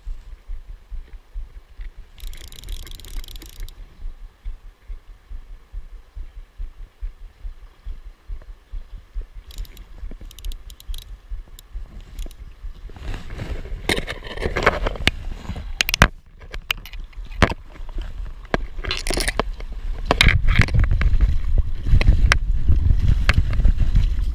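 Low, steady rumble of water and handling noise through a GoPro housing, with a brief hiss about two seconds in. From about halfway, louder clatter, knocks and rough scraping, including forceps clicking against the camera case, as the angler wades and handles the catch.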